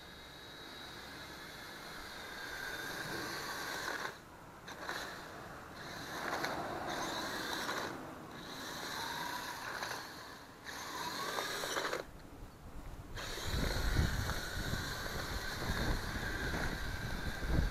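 Electric drive motors and gearbox of a 6x6 RC truck whining as it drives on asphalt, cutting out and starting again several times as the throttle is let off and applied, with a short rising whine a little past halfway. A low rumble joins in for the last few seconds.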